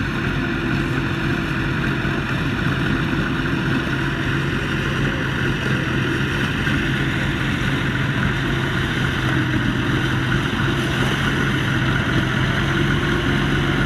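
A heavy engine running steadily at an even speed, a constant low hum with no change in pitch.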